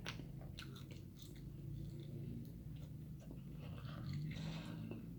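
A person chewing food close to the microphone, with scattered small mouth clicks.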